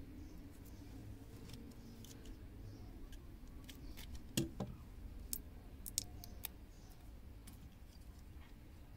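Snap-off utility knife blade cutting and scraping the copper foil shield off the end of a coaxial cable: a few faint, sharp clicks and snips between about four and six and a half seconds in, the loudest near the start of the cluster.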